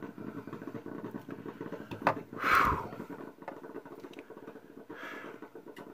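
A sharp click about two seconds in, then a heavy exhaled sigh half a second later and a fainter breath near the end, over a low steady room hum.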